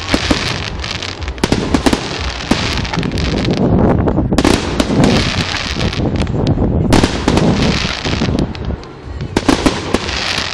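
Aerial fireworks going off: rapid, overlapping bangs and crackling from bursting shells in dense volleys, easing briefly late on before a fresh volley.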